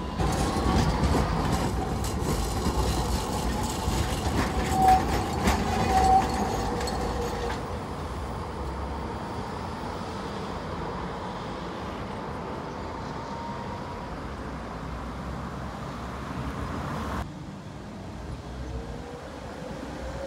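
Tatra tram running on its track, its wheels clicking over rail joints, with two short high tones about five and six seconds in. The running settles after about eight seconds, a faint rising whine comes in the middle, and the sound drops suddenly near the end.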